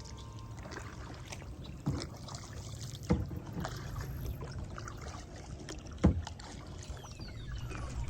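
Kayak paddling on open water: steady wind and water noise with three sharp knocks, about two, three and six seconds in.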